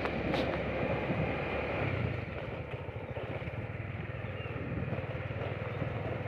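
Motorcycle engine running steadily while riding, with wind noise on the microphone; the engine gets a little quieter about two seconds in.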